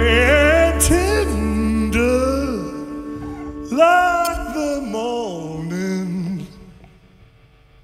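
Male lead singer singing a slow phrase with a wide vibrato over a held band chord from a live rock band. The low bass drops out about two and a half seconds in, and the voice carries on nearly alone before fading out near the end, as the song closes.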